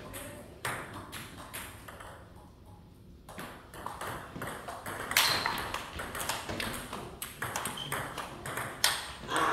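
Table tennis ball clicking off the bats and bouncing on the table during a rally: a run of sharp, quick knocks, with a brief lull about two seconds in.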